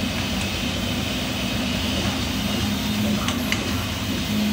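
Steady mechanical hum of a machine running in the room, with a low droning tone that comes and goes. A few light clicks of 3D-printed plastic parts being handled a little past three seconds in.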